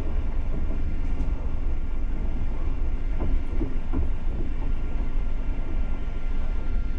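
Passenger train carriage running along the track, heard from inside the coach: a steady low rumble of wheels on rails with a few light knocks about three to four seconds in.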